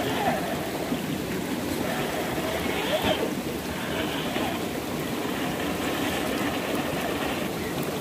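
Steady rush of flowing river water, with faint voices in the background.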